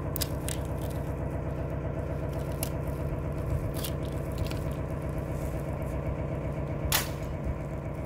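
An engine running at a steady idle, with a few sharp clicks and scrapes over it, the loudest click near the end.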